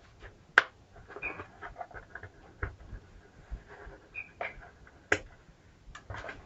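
Irregular sharp clicks, knocks and light scraping of hands handling and cleaning an old household electrical switchboard, the loudest click about half a second in. A few short high chirps are heard around one second and four seconds in.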